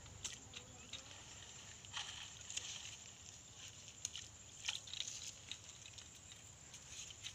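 Faint scattered splashes and rustles as a hooked fish is pulled out of weedy shallow pond water on a pole and line, with the strongest bursts about two seconds in and again near five seconds.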